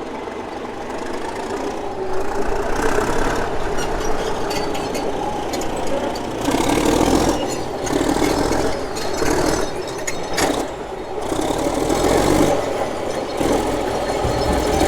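A heavy diesel engine running with a rattle, its loudness swelling and falling every second or two and rising about halfway through.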